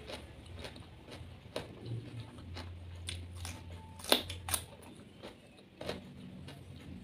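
Close-up eating sounds: small wet mouth clicks, then a crisp bite into a sauce-coated cucumber slice about four seconds in, followed by chewing.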